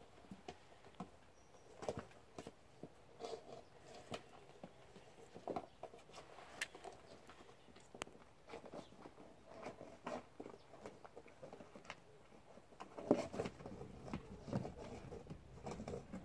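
Springer spaniel puppies playing in and around a cardboard box: irregular small knocks, scuffs and scrabbling, busier and louder in the last few seconds.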